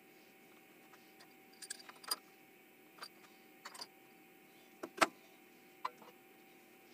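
Scattered light metallic clicks and taps from tools and a steel workpiece being handled at a milling-machine vise, the sharpest about five seconds in, over a faint steady machine-shop hum.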